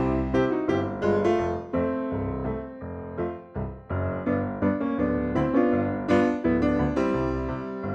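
Background piano music: a steady run of struck notes and chords, several a second, each decaying before the next.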